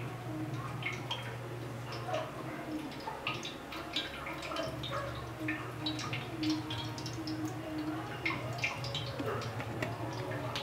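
Irregular light ticks and drips, like water dripping, over a steady low hum.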